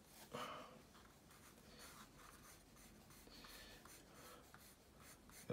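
Graphite pencil scratching faintly on paper in quick sketching strokes, with a short louder sound about half a second in.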